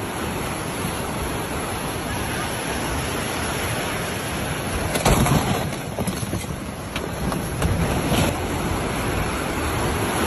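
Muddy floodwater rushing past in a steady torrent. It swells briefly with a few sharp knocks about halfway through and again a little later.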